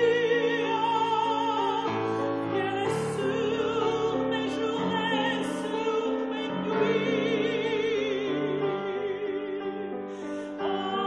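Woman singing in an operatic style, holding notes with a wide vibrato, accompanied by a grand piano.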